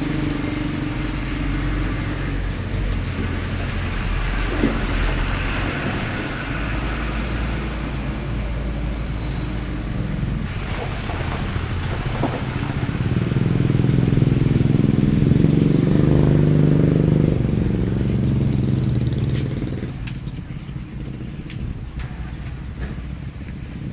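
A motorcycle engine running. It grows louder and higher about halfway through, then eases off and quietens near the end.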